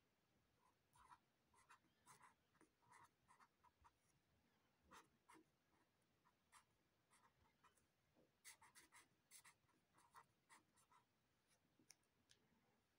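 Faint scratching of a felt-tip marker on paper as letters are written, in short separate strokes with a quick run of strokes a little past the middle; it stops near the end.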